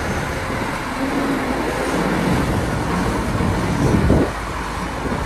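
Caterpillar 6015B hydraulic mining excavator working: its diesel engine running under load, the note rising and falling as it swings and loads, loudest about four seconds in.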